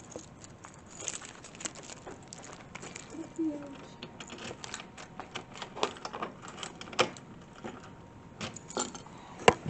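Keys jangling and clicking, with scattered small knocks and clicks of handling, and one sharp click near the end.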